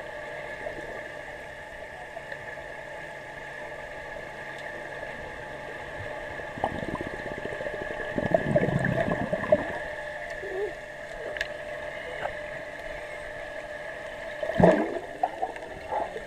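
Underwater sound in a swimming pool: a steady hum, broken by a stretch of bubbling and splashing from a child swimming about halfway through, then one sharp splash near the end.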